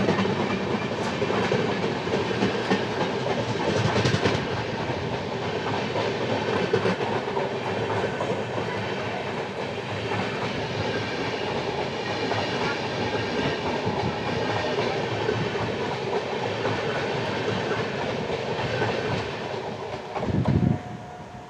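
An Indian Railways express of LHB coaches passing close on the adjacent track, heard from the open doorway of a moving train: a steady rush with rhythmic wheel clatter. It falls away near the end as the last car, the generator car, goes by.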